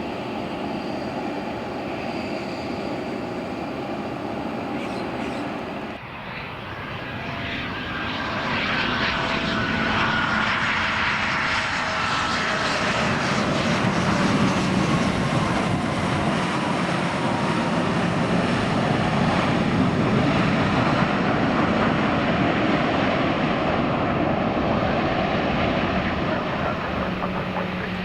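Airplane engines running loud as an aircraft passes, the sound building up and holding, with thin whine tones that slide down in pitch as it goes by.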